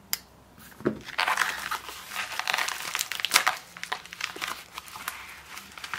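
Plastic bubble mailer crinkling and rustling as it is handled and its contents are pulled out. The irregular crackles start about a second in.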